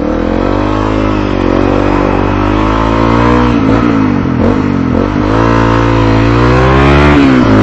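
Motorcycle engine pulling away under power, its pitch climbing and falling back at each gear change several times, with road and wind noise.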